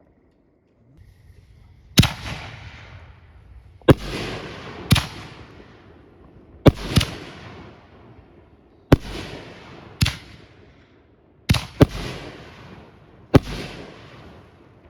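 Consumer 5-inch canister firework shells going off: about ten sharp bangs, some coming in quick pairs. Each bang is followed by a hiss that fades over a second or two.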